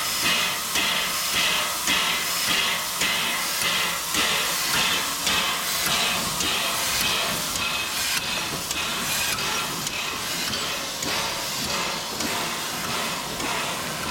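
LBSCR Stroudley Terrier 0-6-0 tank locomotive working slowly, its exhaust beating in an even rhythm of about two chuffs a second over a steady hiss of escaping steam. The beats grow a little fainter near the end.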